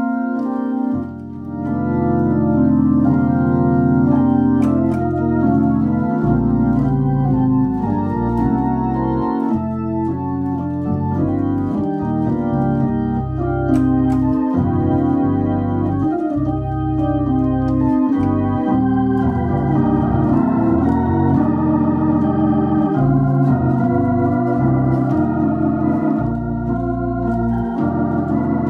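Viscount Legend Live drawbar organ played through a Tornado T115 valve rotary speaker: sustained chords with changing bass notes underneath.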